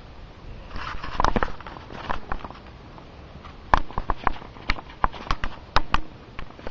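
Shuffling and rustling about a second in, then a quick, irregular run of sharp clicks, about five a second, from a little past halfway to near the end.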